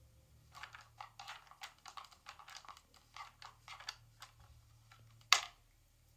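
A cat's paw working a Trixie dog activity tower puzzle, making a quick, irregular run of light plastic clicks and taps, then one sharp, louder knock about five seconds in.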